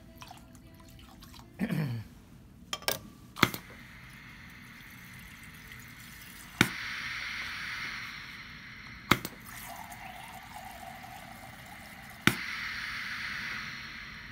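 Hibar 4F2C piston filling machine shooting water into a glass beaker three times, each shot starting with a sharp click and followed by about a second and a half of water hissing into the beaker. A few knocks about three seconds in, as the glass beaker is set on the scale.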